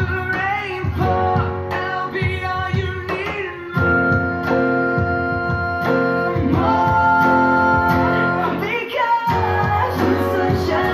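Background music: a song with singing over guitar.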